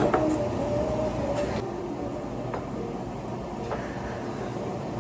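Metal spoon striking a metal bowl: a sharp clink with a brief ringing tone at the start, then a few lighter clinks of cutlery over steady background noise.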